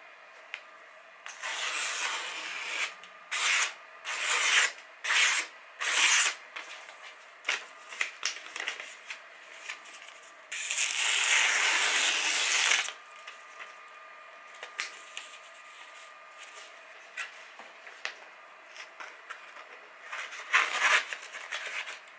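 Paper being sliced with freshly sharpened knives, a paper-cutting test of the edges: a long rustling slice in the first few seconds, several short quick cuts, a longer loud slice around ten to thirteen seconds in, and another short cut near the end, with light paper handling between them.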